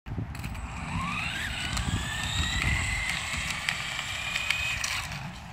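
Radio-controlled car with a giant turtle-shell body driving on asphalt: its motor whine rises in pitch as it speeds up about a second in, then holds steady and drops away near the end, over a low rumble from the road.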